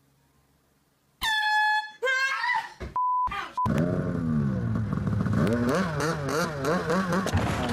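An air horn blasts about a second in, followed by a short startled cry and a brief censor bleep. Then snowmobile engines run and rev up and down.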